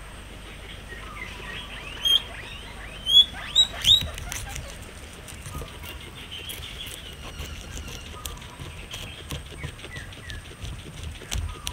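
Guinea pig chewing fresh grass blades: a run of crisp little clicks and snips. About two to four seconds in, a few short high chirps are the loudest sounds.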